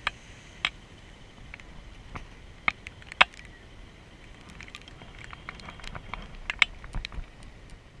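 Raindrops ticking irregularly on the action camera's housing, sharp separate clicks at uneven intervals, over a faint low rumble.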